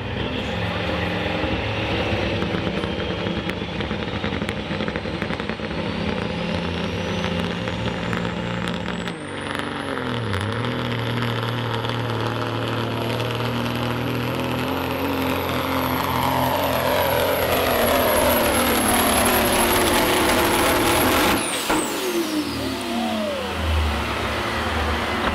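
Turbocharged diesel engine of a Pro Stock semi truck at full load while pulling a weight sled. A high whine rises over the first several seconds and then holds. The engine note dips briefly about nine seconds in. About 21 seconds in the power cuts off suddenly and the whine falls away as the pull ends.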